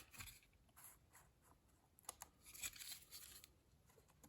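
Near silence with a few faint scattered taps and rustles, most of them past the middle, as plastic shifter trim pieces are handled and fitted together.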